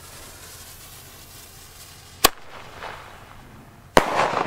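Weco Flashbang shell tube firing: a sharp launch bang about two seconds in, then the louder salute report of the shell bursting in the air near the end, with a long echo trailing off.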